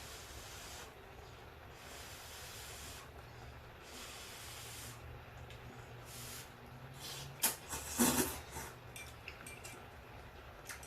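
Close-miked eating sounds: soft hissing breaths roughly every two seconds, then a short burst of crunchy clicks and crackle about eight seconds in.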